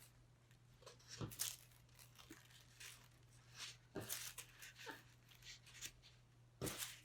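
Faint rustling and crinkling of paper streamers and a paper plate being handled, in a few short, scattered bursts.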